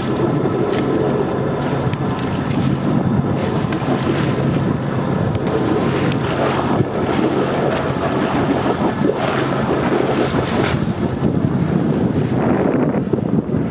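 Wind buffeting the microphone on a boat under way, over a steady low engine hum and water washing past the hull.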